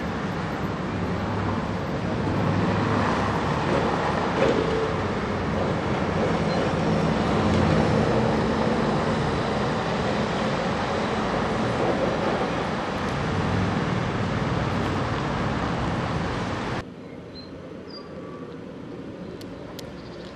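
Gotha T2-62 two-axle tram running along street track and through a curve, a steady rolling rumble with faint tones. After about 17 seconds the sound drops suddenly to a much quieter, more distant running noise.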